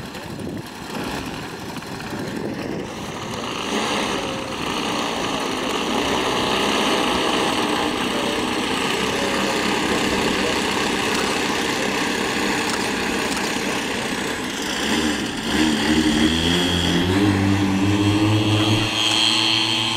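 Engines of a twin-engine radio-controlled model warbird, built as a Grumman F7F Tigercat replica, running as it taxis on grass. About fifteen seconds in, the engine pitch climbs in steps and gets louder as the throttle opens for the takeoff roll.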